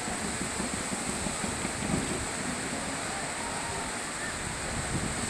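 Steady murmur of a large outdoor crowd of spectators, mixed with wind noise on the microphone.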